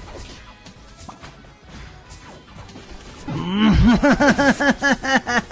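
A call of quickly repeated pitched notes, each rising then falling, about five a second. It sets in loudly about three seconds in after faint clicking.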